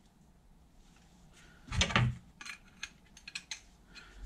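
Metal tools clinking as an adjustable reamer and spanner are handled and the reamer is fitted into a radius arm's bronze bush to check its size. There is one heavier knock about two seconds in, then a few light clicks.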